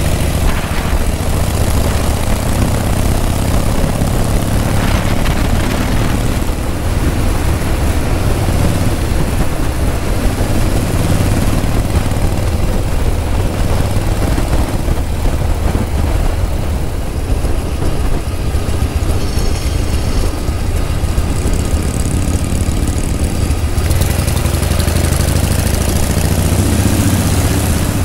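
Vintage Harley-Davidson V-twin engine running steadily at road speed, heard from the rider's own bike with a strong, even wind rush over the microphone.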